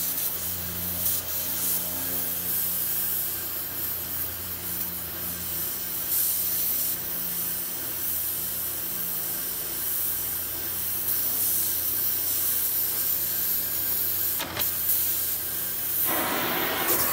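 Gas heating torch flame hissing steadily against a steel driveshaft tube, heating its high spot to pull the runout straight.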